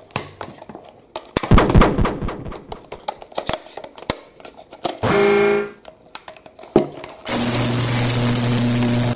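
Motorized toy screwdriver whirring steadily as it drives a plastic screw into a take-apart toy train engine, starting about two seconds before the end. Before it, plastic toy parts clatter and click as they are handled, loudest about two seconds in, and a short pitched tone sounds about halfway through.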